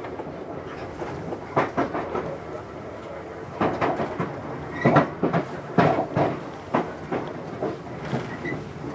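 Electric train running along the line, heard from inside: a steady rumble of wheels on rails with irregular clacks and knocks as the wheels pass over rail joints, most frequent about half way through.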